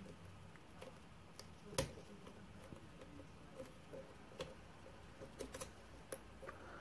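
Metal pick tool clicking against the pins inside a brass mortise lock cylinder as a short hook works pin 5 under tension from a tension wrench: small irregular clicks, one louder click a little under two seconds in and a quick cluster near the end.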